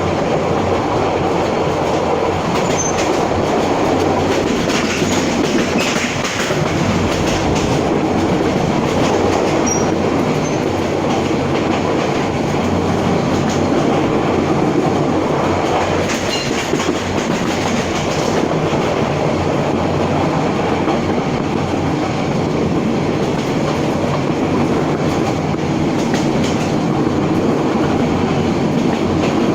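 A passenger train running along the track, heard from aboard: a steady, loud rumble of wheels on the rails.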